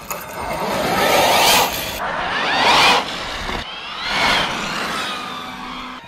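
Twin brushless electric motors of a bodiless RC short-course truck whining as it is driven off down the road in repeated bursts of throttle, the pitch rising with each surge, over a hiss of tyre noise.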